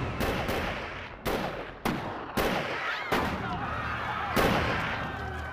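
A run of gunshots, about seven sharp reports at irregular spacing over five seconds, with voices crying out between them.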